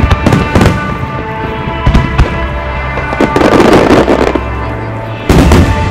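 Aerial firework shells bursting with sharp bangs, several near the start, a pair about two seconds in and a loud one near the end, over music played with the show. A grainy rush of noise comes a little past the middle.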